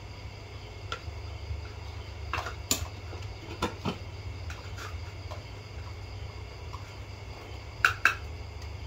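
Metal spoons clinking and scraping against plates, bowls and a rice pot during a meal: scattered single clinks, the loudest two in quick succession near the end, over a steady low hum.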